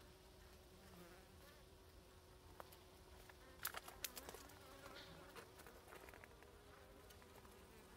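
A wild honeybee colony buzzing faintly in a steady hum. A few sharp clicks come a little before halfway through.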